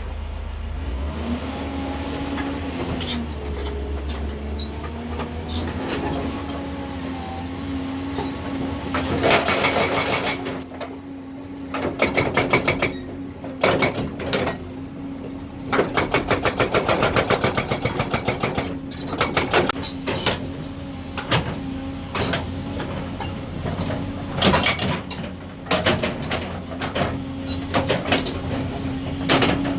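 Excavator engine running with a steady hum, and its hydraulic breaker hammering in bursts of rapid blows lasting a second or a few seconds each, starting about nine seconds in.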